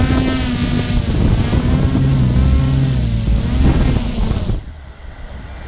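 Camera drone's electric motors whirring, a cluster of steady pitched tones with wavering upper tones as the throttle shifts. The sound drops sharply and goes duller about four and a half seconds in.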